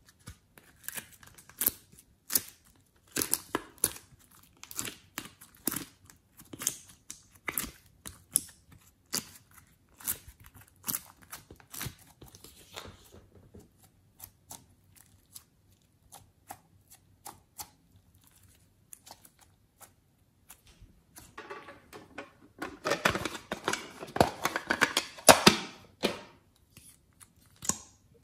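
Glossy slime being handled by hand, pulled out of a plastic mold tray and squeezed and stretched between the fingers. It gives sticky clicks, pops and tearing crackles, sparse in the middle, with a dense run of crackling in the last third.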